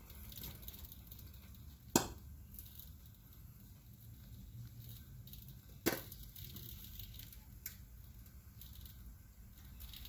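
An egg frying quietly in a little oil on an electric grill plate kept on its warming setting: a low, faint sizzle with two sharp pops about four seconds apart and a fainter one later.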